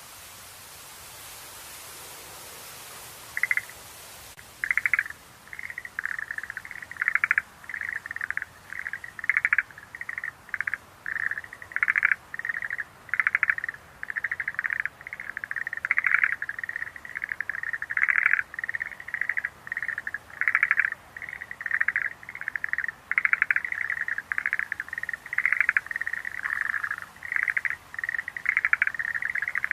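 Schlegel's green tree frogs calling: short, rapid pulsed trills repeated one after another and overlapping into a steady chorus. The calling starts about three seconds in, after a faint hiss.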